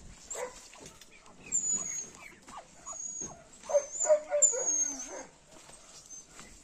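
A dog whining and yelping in short calls whose pitch bends up and down, with thin high chirps from small birds or chicks.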